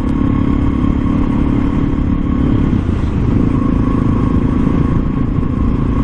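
Suzuki DR650SE's single-cylinder four-stroke engine running steadily at cruising speed, with wind rumbling on the microphone.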